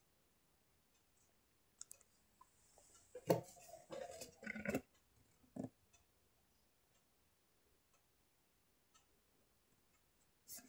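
Faint scattered clicks and knocks, with a short, louder cluster of clicking and knocking about three to five seconds in.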